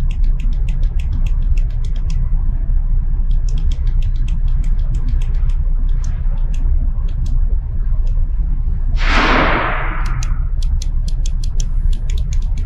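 Park Industries Voyager CNC saw: a steady low hum under runs of sharp, quick clicks, several a second, that come in spells with short pauses, while the spindle head is jogged in small steps toward zero on a dial indicator. A loud hiss about nine seconds in lasts a second or so.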